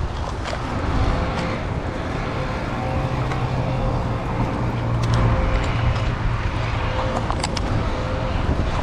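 Stihl top-handle chainsaw idling steadily, with a few light clicks.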